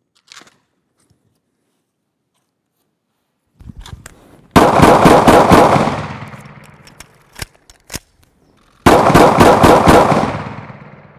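A Glock Gen4 9mm pistol fires two rapid strings of shots. The first comes about four and a half seconds in and the second about three seconds after it; each lasts about a second and a half and trails off in a long echo.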